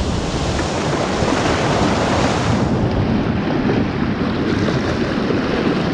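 Sea surf washing over the rocks just below, mixed with wind buffeting the microphone; the hiss of the wash eases about halfway through.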